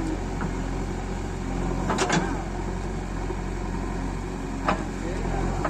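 JCB 3DX backhoe loader's diesel engine running steadily, with a sharp knock about two seconds in and another near the end.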